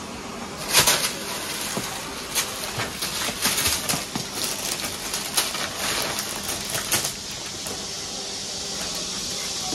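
Thin plastic bin bags crinkling and rustling in quick bursts as kittens scramble and pounce on them. The crinkling stops about seven seconds in, leaving a steady hiss that slowly grows.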